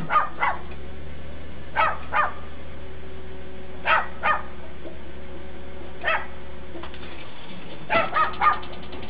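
A dog barking, mostly two quick barks at a time every couple of seconds, with a run of three barks near the end, over a steady low hum.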